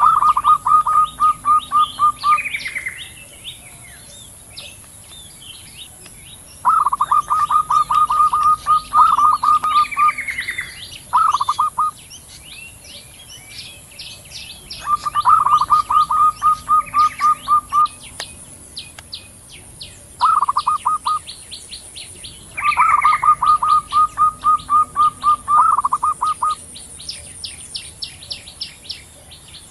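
Zebra doves (perkutut), a female and a male, calling back and forth: about six bursts of rapid, evenly repeated notes with pauses between, some opening with a short rising note. Fainter, higher chirping and a steady high hiss run behind them.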